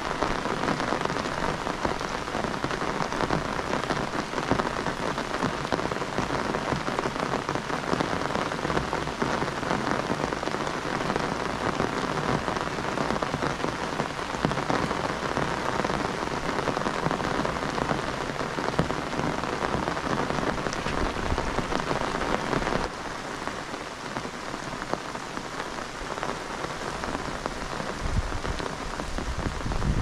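Heavy rain falling steadily, a dense patter of drops. About two-thirds of the way through it abruptly becomes a little quieter and duller, and near the end a low rumble builds up.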